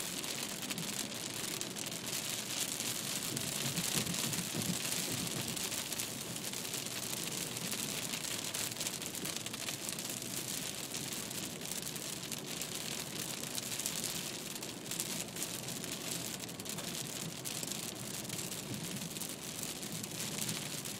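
Rain hitting a moving car's windshield and roof: a steady hiss dotted with fine drop ticks, over the hiss of tyres on the wet road.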